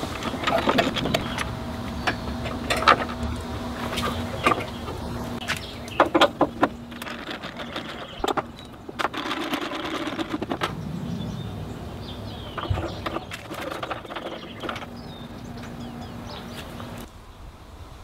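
Phillips screwdriver backing out screws from a Vespa LX's plastic glovebox and legshield panels: irregular clicks, ticks and scrapes of the driver and screws, with knocks from the plastic panels. A low steady hum runs underneath and stops near the end.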